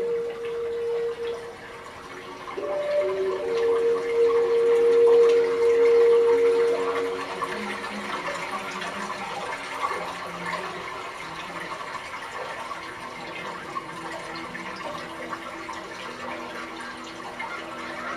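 Running water with a flickering, splashy hiss, over which long steady tones are held through the first seven seconds.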